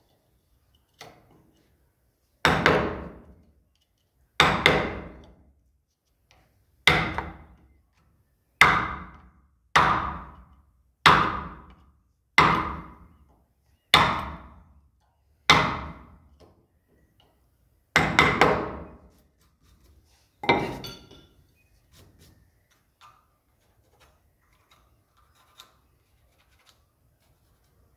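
Hammer blows on a wood-carving chisel driving it into a wooden door frame to cut a flower, about a dozen single strikes one to two seconds apart, each ringing briefly. There is a quick double blow near the end of the series.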